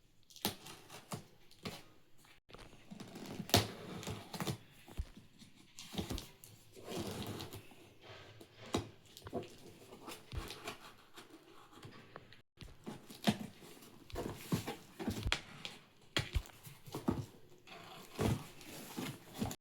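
Handling and unboxing noises: packaging rustling and tearing, with irregular clicks and knocks as the kettle and its parts are picked up and set down.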